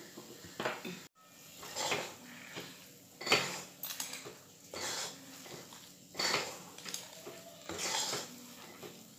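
Steel spoon scraping and stirring thick moong dal halwa against a metal kadai, in repeated strokes about once a second.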